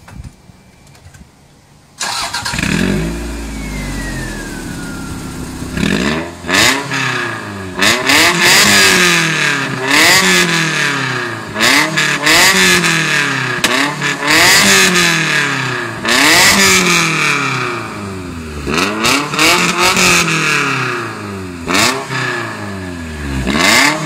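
Toyota MR2 engine starting about two seconds in and idling, then revved in repeated quick throttle blips, each rising sharply and falling back, every one to two seconds.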